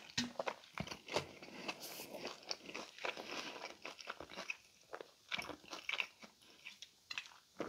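Biting and chewing a Pizza Hut Melt, the crisp folded crust crunching in many short, irregular crackles.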